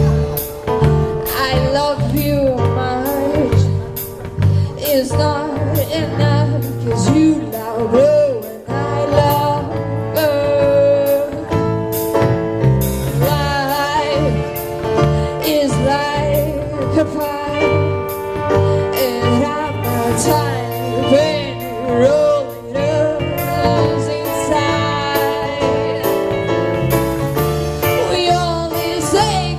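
A live band playing a song, with a woman singing the lead over chords, bass and drums with a steady beat.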